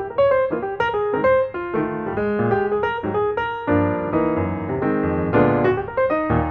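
Background piano music: a melody of quick notes over chords.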